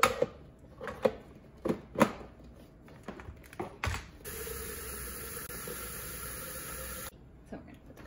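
Plastic parts of a Nespresso VertuoPlus coffee machine knocking and clicking as they are handled and fitted in place, several sharp knocks in the first four seconds. Then a steady hiss for about three seconds that cuts off suddenly.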